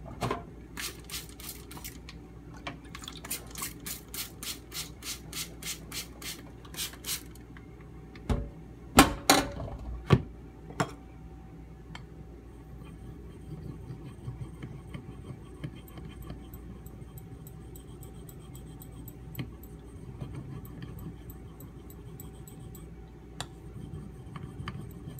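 Knife blade drawn across a sharpening stone in a quick run of short, regular strokes, about two or three a second, for the first seven seconds or so. A few louder knocks follow, then only faint scraping and ticking.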